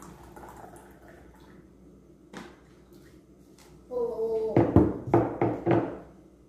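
Coffee being poured from a vacuum thermos into a small porcelain cup, a faint trickle in the first second or so. About four seconds in comes a short pitched sound, then a run of loud knocks and bumps, the loudest sounds here, as the thermos and cups are handled on the table.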